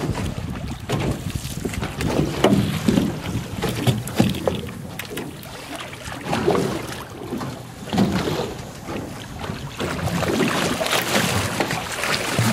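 Water splashing irregularly as a hooked striped marlin thrashes at the surface beside the boat's hull while its leader is grabbed, with wind buffeting the microphone.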